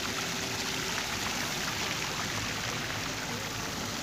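Small decorative fountain jets splashing steadily into a stone basin.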